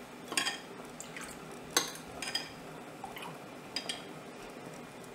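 A metal spoon clinking against a dish four or five times, light sharp clinks with a brief ring, over a faint steady hiss.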